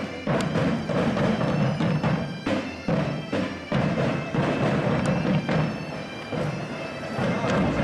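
Portuguese bagpipes (gaitas de foles) playing a tune over a steady drone, with bass drum beats.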